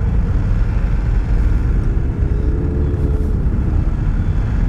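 Motorcycle engines rumbling as the bikes roll slowly and idle in a queue. A faint engine note rises and falls about two seconds in.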